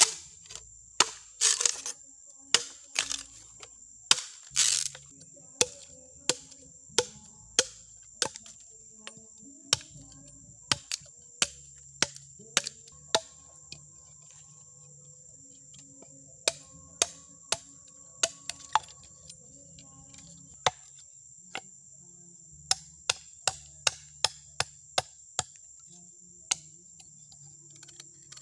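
A long knife chopping into a green bamboo tube held against a log: sharp, irregular strikes about one or two a second, with two short pauses. Insects shrill steadily in the background.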